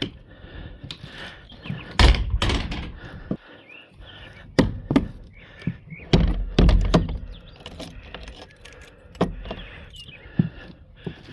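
A series of dull thunks and knocks, about six in all and irregularly spaced, of hard objects being set down or bumped. Two of them come with a short low rumble.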